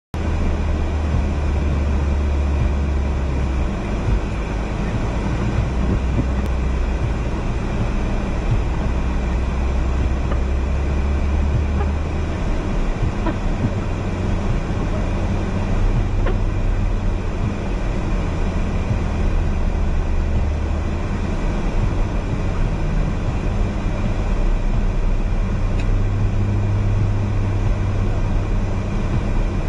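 Car engine running with tyre and road noise, heard from inside the cabin while driving on a snow-covered road: a steady low drone that shifts in pitch now and then as the engine speed changes.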